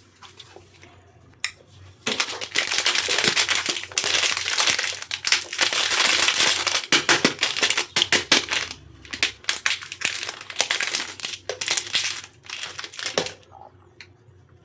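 Plastic candy wrapper crinkling and crackling as it is handled, in dense bursts from about two seconds in until shortly before the end.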